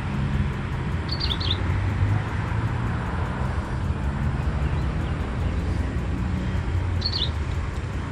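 Steady low rumble of an engine, with a small bird chirping briefly twice, about a second in and again near the end.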